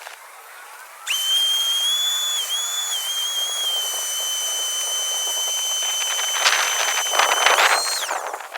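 Shop vacuum running with a high-pitched motor whine that starts abruptly about a second in, wavers and settles to a lower pitch as it pulls up standing flood water. Near the end there is a loud, noisy rush of air and water through the nozzle, then the whine rises and cuts off.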